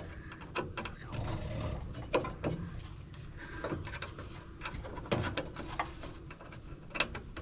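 Scattered light metallic clicks and rubbing from hands working a pin into a Willys CJ2A gas pedal linkage, hunting for the cotter-pin hole.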